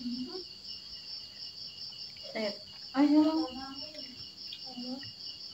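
Crickets chirping in a steady, high, finely pulsing trill, with a child's brief voiced sounds about two and a half seconds in.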